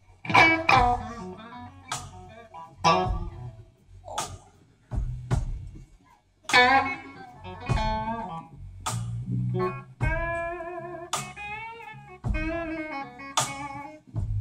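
Electric guitar playing blues phrases live: sharply plucked notes and chords in short runs with brief pauses between, and near the end a few held notes shaken with vibrato.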